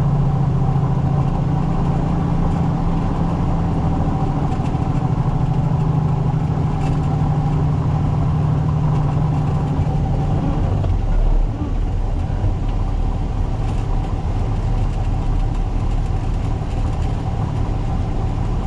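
Diesel engine of a Peterbilt 337 tow truck, heard from inside the cab while driving, running with a steady drone. About ten seconds in the engine note drops away as the truck eases off, leaving a lower rumble.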